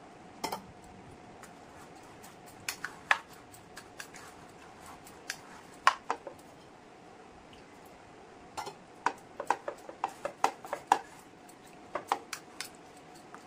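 Steel spoon clinking and scraping against the bowl while stirring thick semolina (rava) batter with curd and chopped vegetables. Sharp clinks come in irregular groups and are busiest a little past the middle.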